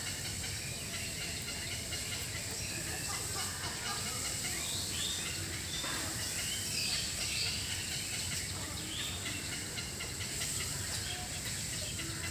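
Small birds chirping in short scattered calls, over a steady high hiss and a low background rumble.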